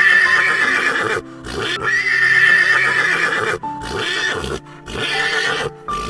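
Horse whinnying in a series of loud calls, the first two long and the later ones shorter, over background music.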